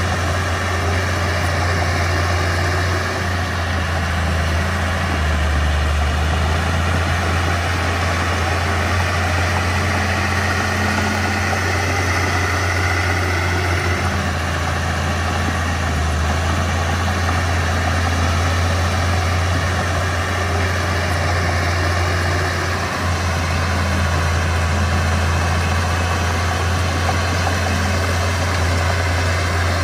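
Mitsubishi BD2F bulldozer's diesel engine running steadily with a low, even drone.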